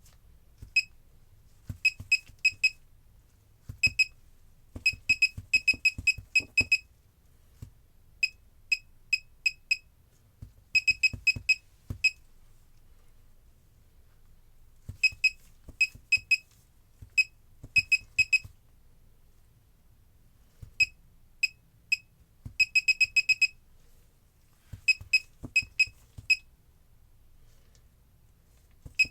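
Laser projection keyboard's electronic key-press beeps: one short high beep per keystroke, coming in quick irregular runs with pauses between them as someone types.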